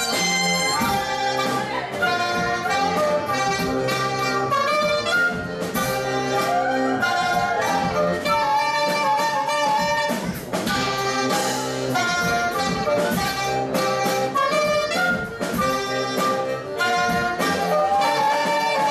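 Breton folk dance music: wind instruments play a lively melody over a held low drone, with an even, steady beat.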